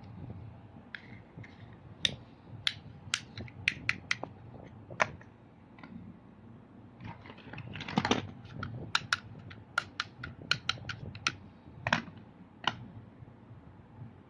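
A run of sharp, irregular clicks and clacks of hard objects being handled, thickest in two flurries, over a low steady rumble.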